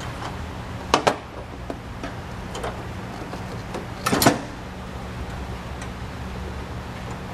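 Car battery hold-down bracket being fitted over the battery: two sharp metal clicks about a second in, then a louder short clatter of knocks a little after four seconds, with a few faint ticks between.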